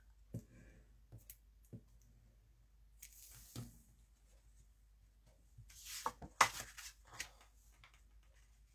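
Paper-crafting handling sounds: a few light clicks from a handheld adhesive dispenser on card stock, then a short slide of paper. A little past the middle comes a cluster of rustling and tapping, loudest just after six seconds, as a patterned paper layer is laid on a card base and pressed down.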